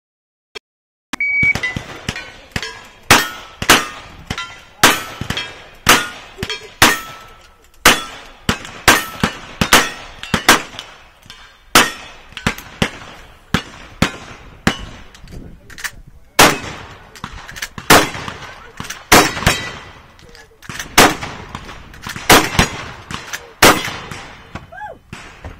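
A shot timer beeps once about a second in, then a fast string of gunshots from single-action revolvers and a shotgun, many shots followed by the ring of steel targets being hit.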